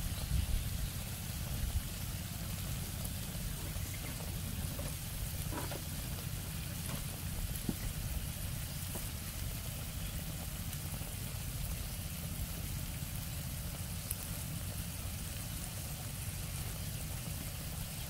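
Steady low rumble with a faint hiss, and a few soft taps as vegetables are laid on fish in a wok.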